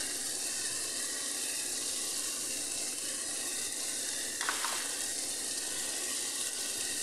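Chopped tomatoes with ground spices sizzling steadily in a frying pan on a gas burner, with one brief light knock about halfway through.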